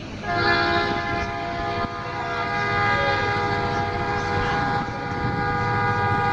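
Train horn sounding one long, steady blast that starts a moment in, several tones held together over the low rumble of the train.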